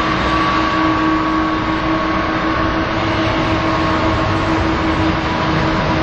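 Boeing 777's twin jet engines at takeoff thrust during the takeoff roll: a loud, steady roar with a low hum and a higher whine held steady through it.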